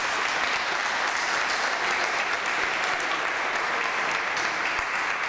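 Applause: a group of children and adults clapping steadily.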